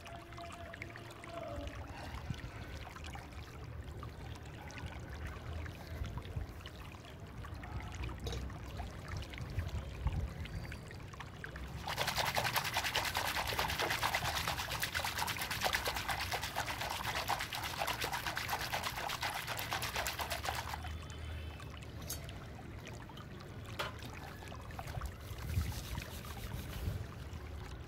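Hands swishing and splashing water in a large stainless steel basin of soapy water, loudest for about nine seconds in the middle. After that it goes quieter, with a few light clinks as a small steel bowl is scrubbed with a steel-wool scrubber.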